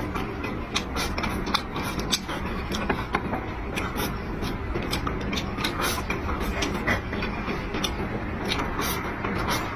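Close-miked eating sounds: chewing and mouth noises with many irregular, quick crunchy clicks.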